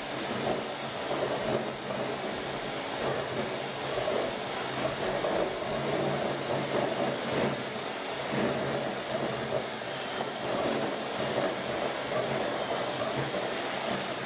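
Electric hand mixer running steadily, its beaters working a crumbly creamed butter-and-sugar mixture to beat in an egg in a stainless steel bowl.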